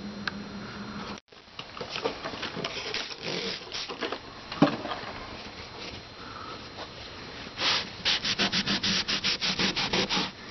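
Hand rubbing a marked line off a wall, scrubbing back and forth. A low hum cuts out about a second in; the strokes are uneven at first, then turn fast and rhythmic, about five a second, over the last few seconds.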